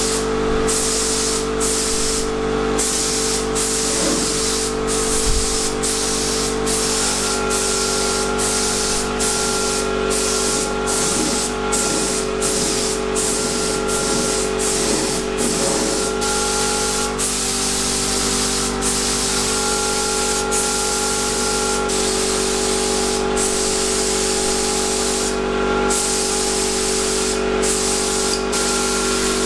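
Gravity-feed paint spray gun hissing as it sprays 2K urethane primer, in passes broken by many brief pauses. A steady hum of pitched tones runs underneath and shifts in pitch about seven seconds in.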